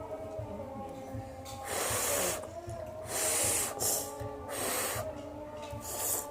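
Several short, noisy draws of air through the mouth or nose while eating spicy noodles: loud slurping or hissing intakes of breath, each about half a second long.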